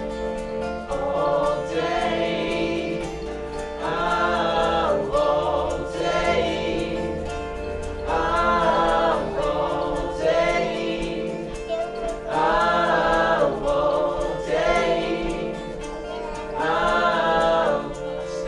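Live acoustic folk music: strummed acoustic guitar and fiddle with voices singing in short phrases about every two seconds, over a steady held note.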